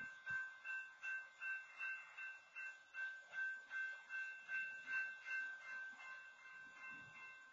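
Railroad crossing warning bell ringing in steady, even strokes, a little under two a second, getting somewhat fainter near the end: the crossing signal is active because a stopped freight train occupies the crossing.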